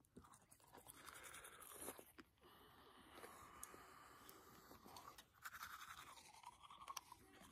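Faint sound of a battery-powered electric toothbrush running as teeth are brushed: a steady motor buzz with bristle scrubbing, broken off briefly a couple of times as the brush moves.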